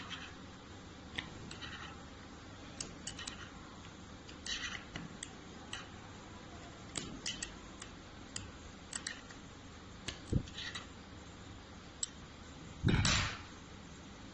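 Metal pick clicking and scraping inside the metal bore of a pneumatic shockwave handpiece as a rubber ring is pressed into place: scattered light ticks and short scrapes. There is a sharper knock about ten seconds in and a heavier knock with rustling near the end.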